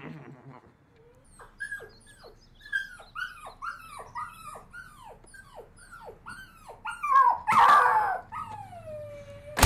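Small dog whimpering and yipping: a quick series of short cries that fall in pitch, about two or three a second, then a louder cry about three-quarters of the way through and one long falling whine near the end.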